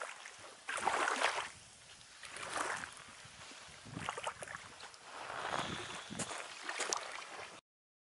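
Small waves washing up and back on a shingle beach, four or five swells of noise one to two seconds apart, with a few sharp crackles from a small wood campfire. The tide is rising and reaching the fire. The sound cuts off suddenly near the end.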